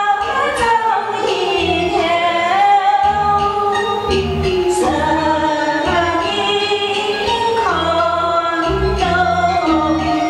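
A woman singing a Hakka folk tune (xiaodiao) into a handheld microphone, the melody sliding between held notes over a recorded karaoke backing track with a pulsing bass line.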